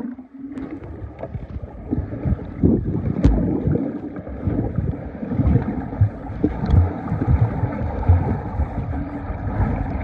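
Muffled rumble and bubbling of swimming-pool water picked up by a camera microphone held underwater, with irregular low thumps from bodies moving in the water.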